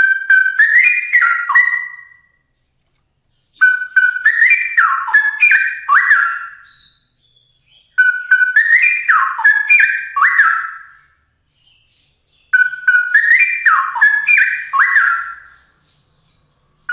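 Straw-headed bulbul (cucak rowo) singing: loud, liquid whistled phrases of gliding notes, each about two to three seconds long, repeated four times with short pauses between.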